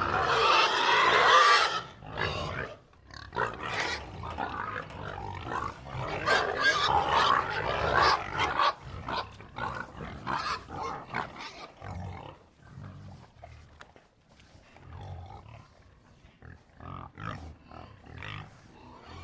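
A herd of pigs grunting and squealing: a loud high squeal in the first two seconds, then a dense stretch of overlapping squeals and grunts, thinning into scattered low grunts with a few short squeals in the second half.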